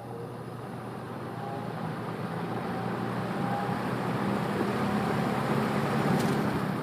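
Kmart P-23 box fan starting up on medium speed: a steady motor hum under a rush of air from the blades that grows steadily louder as the fan comes up to speed.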